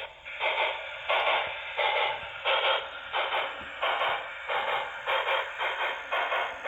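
Sound decoder of an HO scale PRR T1 duplex steam locomotive model playing steam exhaust chuffs through its small speaker, in a steady rhythm of about two to three chuffs a second.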